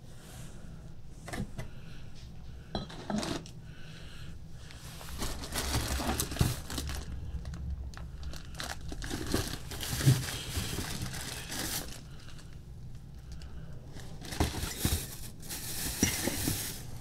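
Clear plastic wrapping crinkling and cardboard rustling as a packed part is handled and unwrapped, in several bouts with a few sharp knocks in between.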